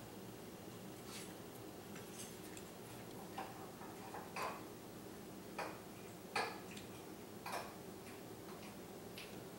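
Light clicks and knocks, about eight spread irregularly over several seconds, as a plunge router that is switched off is shifted and lined up on a mortising jig's base plate. A faint steady hum lies underneath.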